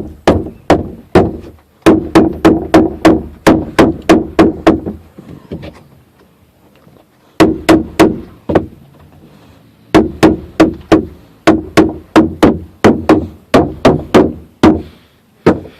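Hoover Bagless vacuum's filter being tapped against a hard surface to knock the dust out of it: runs of sharp knocks, about three a second, broken by two short pauses.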